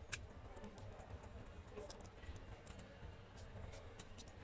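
Faint, irregular small clicks and taps as display flex cable connectors are pressed onto an iPad Pro 9.7 logic board, with a sharper click just after the start and a few more near the end, over a low steady hum.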